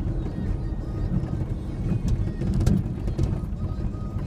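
A 2003 Ford Ranger 4x4 crawling over a rough off-road trail: steady low rumble of the truck and tyres, with irregular knocks and rattles as the body and suspension take the bumps.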